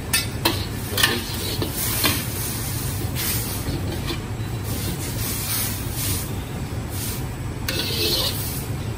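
Metal wok spatula and ladle scraping and knocking against a wok as stir-fried noodles sizzle, with the sharpest clanks in the first two seconds. A steady low rumble runs underneath.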